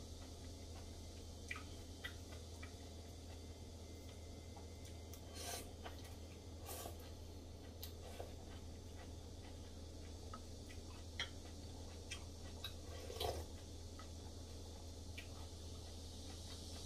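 A person eating soup with chopsticks and a wooden spoon: scattered light clicks of utensils against a ceramic bowl, with chewing and a few louder slurps, over a steady low hum.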